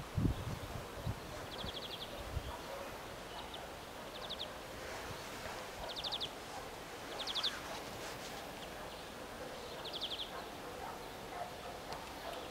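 Rural outdoor ambience with short, high trilled chirps, each a quick run of clicks, recurring about six times at irregular intervals of one to three seconds. A few low wind thumps come right at the start.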